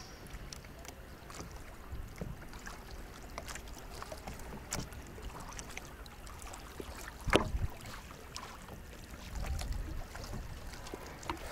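Water splashing around a kayak at sea, with scattered small knocks and one louder thump about seven seconds in.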